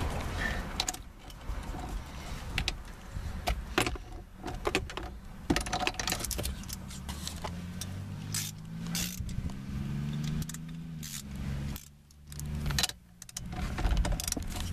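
Metal tools clinking and knocking as a breaker bar with a socket and extension works the steering wheel's centre nut. A low hum rises and then falls in pitch for a few seconds near the middle.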